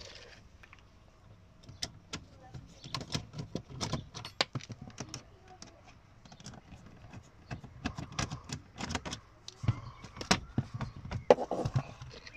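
Irregular clicks, taps and rattles of a screwdriver turning out screws and a plastic under-dash trim panel being worked loose and lifted away from a car's fuse box.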